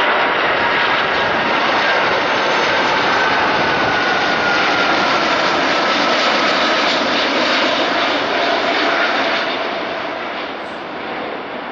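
Airbus A330 jet airliner passing low overhead on landing approach with its gear down: a loud rush of engine noise with a thin whine that slides down in pitch as it goes by, fading over the last couple of seconds.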